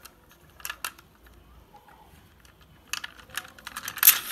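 Hard plastic toy car being handled in the hands: scattered light clicks and taps, a quick cluster of them about three seconds in and a sharper click near the end.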